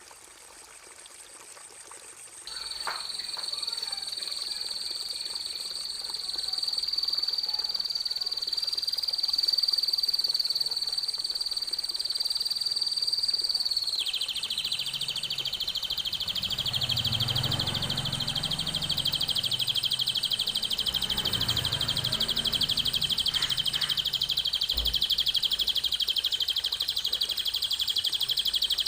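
Recorded songbird song used for training cage birds: a continuous, high, rapid trill starts about two seconds in, and about halfway through gives way to a lower, fuller trill. A low, uneven sound runs underneath for several seconds in the middle.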